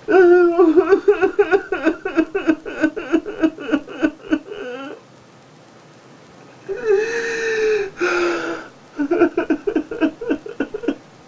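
A man sobbing hard in grief: rapid gasping sobs, about four a second, then a pause, a long drawn-out wail and a shorter cry, then another run of rapid sobs near the end.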